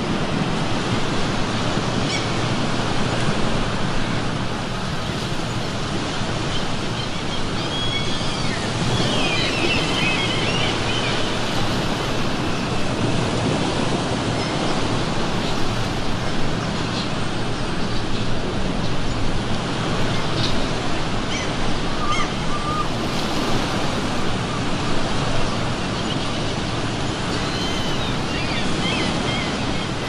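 Ocean surf washing steadily on the shore, with seagulls calling over it, the calls clearest about eight to eleven seconds in and again near the end.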